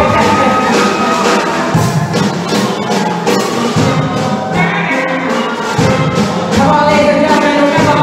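Steel pan orchestra playing live: ringing pitched pan notes over a steady, driving percussion beat.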